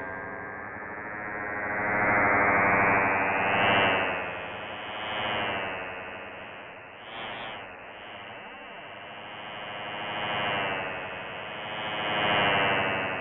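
Electro-acoustic computer music: a dense synthesized drone of many layered tones, swelling and fading in slow waves, with a brief swoop in pitch about halfway through.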